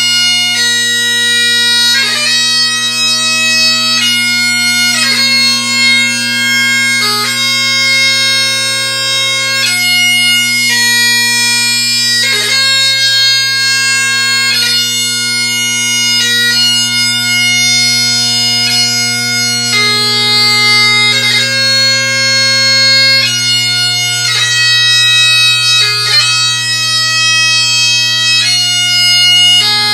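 Great Highland bagpipe played solo in a slow piobaireachd lament: steady drones under the chanter melody, long held notes broken every second or two by quick gracenote embellishments.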